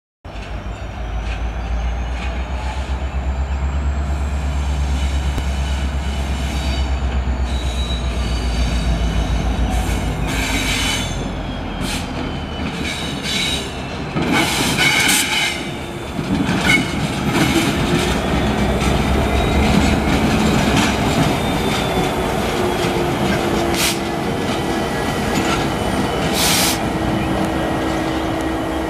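EMD SD75I diesel-electric locomotive working slowly past with freight cars, its engine giving a deep pulsing rumble that is strongest in the first dozen seconds. Wheels squeal and screech against the rail in several sharp bursts, about halfway through and again near the end.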